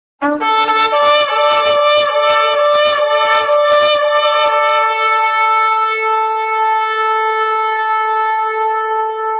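Shofar blown in a rapid run of short, broken notes for about four seconds, then settling into one long held note.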